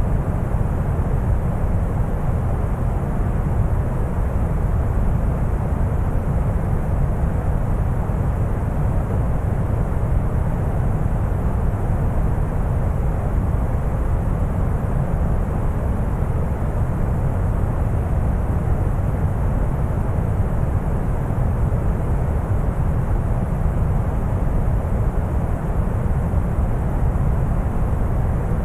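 Synthetic brown noise: a steady, deep rumbling hiss with most of its weight in the low end, unchanging throughout.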